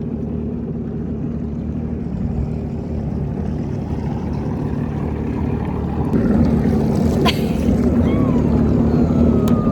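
Jet ski engine running under way on the water, a steady drone that gets louder about six seconds in.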